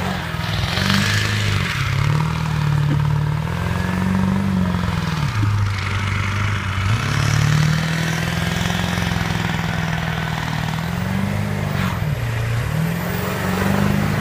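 Ford F-350's 7.3-litre Power Stroke turbo-diesel V8 revving up and dropping back several times as the pickup is drifted around on snow.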